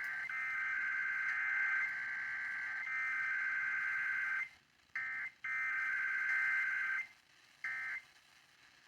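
Emergency Alert System SAME digital data bursts: a harsh buzzing two-tone warble, first a long stretch of about four and a half seconds with brief breaks, then three shorter bursts separated by quiet gaps, the last a short one near the end. These coded bursts mark the start and end of an alert.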